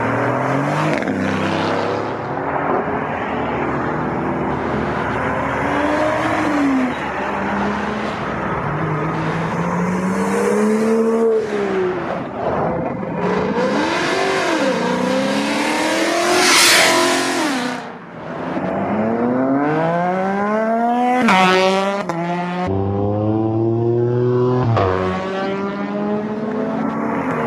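Performance cars accelerating away one after another, each engine rising in pitch through a gear and dropping at the shift. One car passes loudly about two-thirds of the way in.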